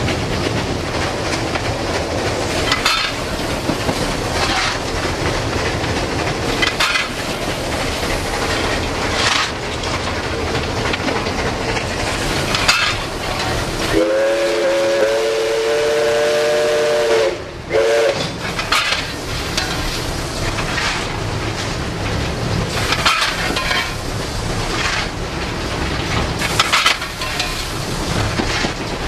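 Footplate noise of steam locomotive 5910 running under way, with occasional short knocks. About halfway through, its steam whistle sounds a chord of several tones for about three seconds, then gives a short second toot.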